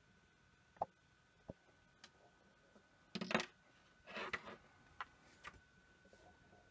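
Faint clicks and taps of small parts being handled on a workbench, with two short breathy bursts a little past three and four seconds in, over a faint steady high whine.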